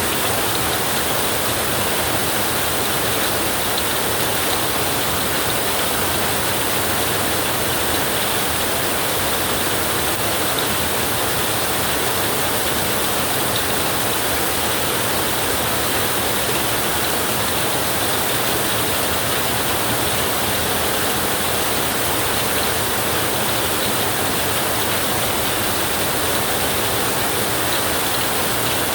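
Flowing river rushing steadily, an even continuous water noise with no breaks.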